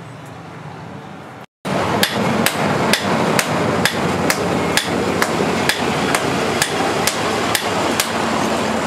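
Two sledgehammers striking a red-hot steel axe head on an anvil in turn, in a steady rhythm of about two blows a second. The hammering starts about two seconds in, after a quieter stretch of low steady noise.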